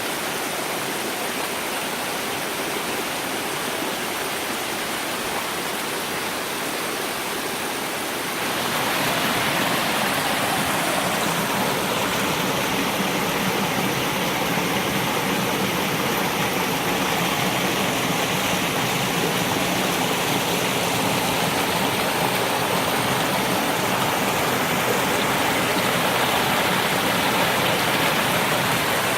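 Steady rushing of a waterfall. It gets louder about eight seconds in and stays at that level.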